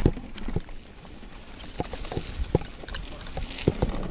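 Mountain bike clattering down a rough dirt trail: irregular knocks and rattles from the bike and tyres over roots and rocks, with a low wind rumble on the helmet camera's microphone.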